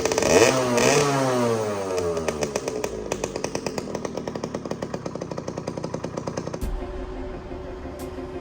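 50cc two-stroke moped engine revved up once, then falling back to a slow idle with its separate firing pulses audible. The engine sound cuts off abruptly near the end.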